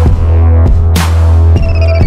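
Electronic background music with a deep, steady bass and a sharp beat hit roughly once a second; a thin falling high tone comes in near the end.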